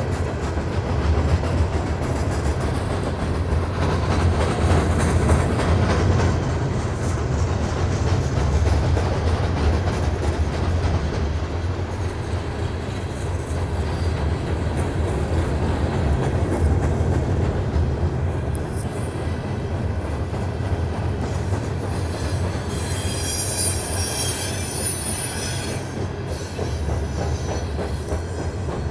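Norfolk Southern freight train of loaded open-top hopper cars rolling across a steel girder bridge: a steady low rumble of wheels on rail. About 23 seconds in, a high wheel squeal rises over it for a few seconds.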